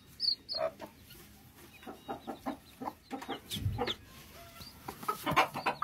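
Broody silkie hens clucking softly to their brood, a steady run of short low clucks, with a few thin high peeps from the chicks.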